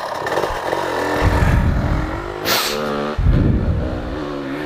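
Off-road vehicle engine running and being revved, its pitch shifting up and down in steps, with a loud rushing burst about halfway through.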